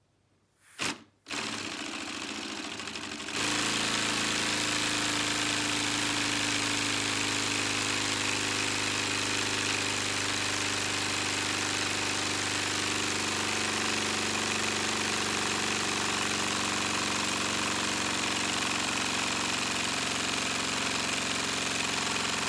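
Lego pneumatic V4 engine, run on compressed air at about 35 psi, starting up after a short click about a second in, then stepping up about three seconds in to a steady, even run at about 1600 rpm: a constant buzz with a hiss over it.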